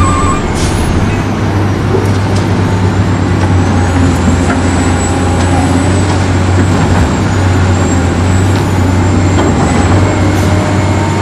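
Remote-control toy construction trucks running: a steady low engine rumble with a thin high motor whine that wavers slightly.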